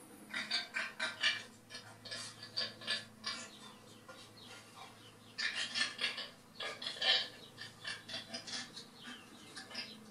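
Recorded chicken clucking from a model railway sound chip: short rapid clucks in four bunches, with a low steady hum underneath.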